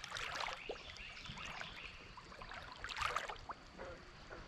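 Canoe paddle dipping and splashing in calm river water, one stroke near the start and another about three seconds in.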